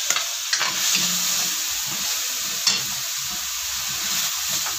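Julienned carrots frying in hot oil in a metal wok, a steady sizzle, while a metal spatula stirs them and clicks against the pan a few times.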